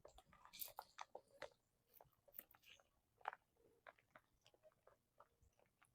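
Near silence with a few faint, scattered clicks, most of them in the first half.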